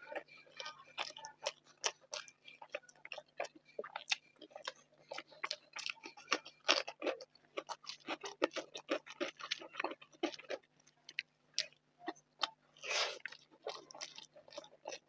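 A person chewing a mouthful of rice and curry close to the microphone: a dense run of irregular wet mouth clicks and smacks, with a couple of louder, longer bites, one about halfway through and one near the end. A faint steady hum sits underneath.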